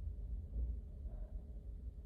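Low steady rumble of a car interior, with one faint breath about a second in as a sneeze builds up.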